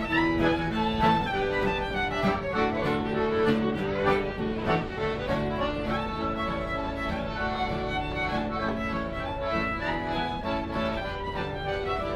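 Small acoustic folk band playing a pirate song live: fiddle carrying the melody over strummed acoustic guitar, with a tin whistle.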